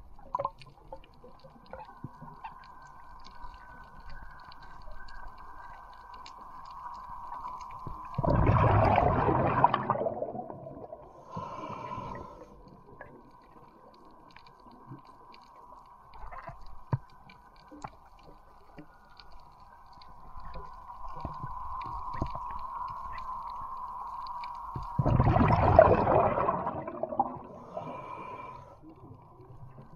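Underwater sound on a reef: a steady high whine, typical of a boat's engine and propeller carried through the water, over a constant scatter of faint clicks. Twice, about eight seconds in and again some seventeen seconds later, a loud rushing, gurgling burst of air bubbles lasts about two seconds.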